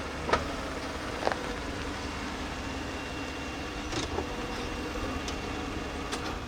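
A vehicle's engine running steadily at low speed as it rolls its tyres over a headlamp on hard, rocky ground. There are a few sharp clicks, about a third of a second, one second and four seconds in.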